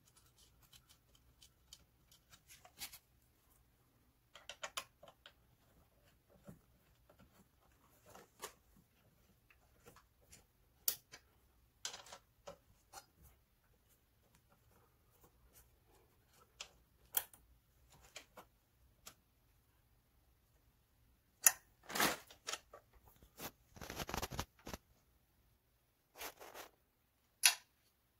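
Scattered small metallic clicks and taps as bolts are turned with a hex key to fix a gaming chair's seat tray mechanism, with a few louder knocks and a short scuff of handling about three-quarters of the way through.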